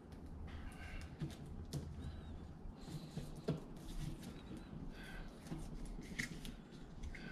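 Hands handling a taped cable and feeding it into a recessed wall box, making irregular small clicks and rustles.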